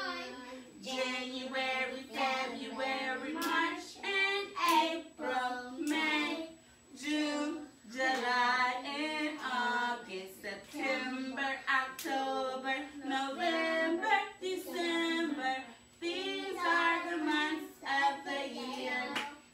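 A woman and young girls singing a children's song together, with a few sharp hand claps.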